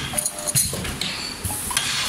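Four-side-sealing sachet packing machine running, with a rhythm of light metallic clicks and knocks from its sealing and cutting mechanism. A short hiss comes about one and a half seconds in.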